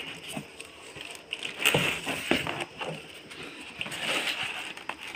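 Cardboard carton and plastic wrapping being handled as a packed unit is pulled out from its foam: irregular rustling and scraping with scattered small knocks.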